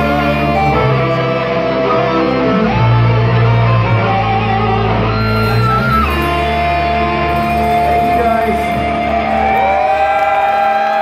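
Live rock band playing loud amplified music, heard from within the audience: electric guitars over heavy bass. About ten seconds in the bass drops out, leaving held guitar notes that bend in pitch.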